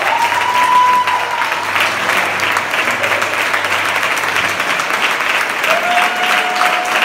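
Audience applauding, a dense steady clapping, with a couple of drawn-out cheering calls rising above it, one near the start and one near the end.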